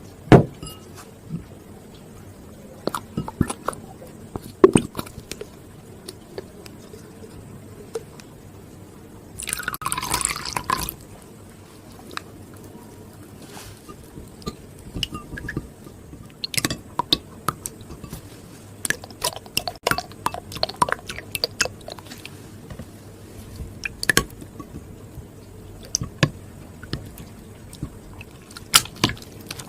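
Wet, sticky sounds of slime being made: scattered small squelches, drips and clicks, with a longer pouring or squeezing rush about ten seconds in.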